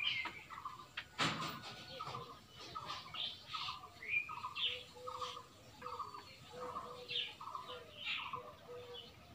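Small animals calling outdoors: irregular high chirps over a steady call repeated about twice a second. A single sharp knock comes about a second in.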